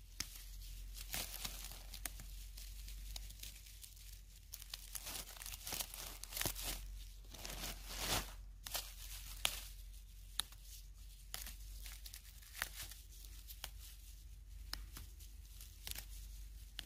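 Fern fiddleheads being snapped off their clump by hand and dropped into a plastic bag: a run of short crisp snaps and crackles, with crinkling of the bag and rustling of dry grass stems.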